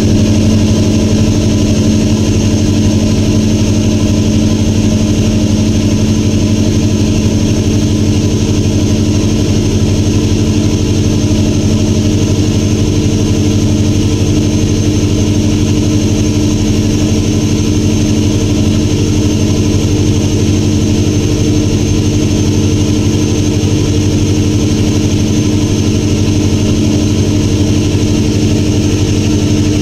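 Boat engine running steadily at cruising speed: a loud, unchanging drone with a strong low hum.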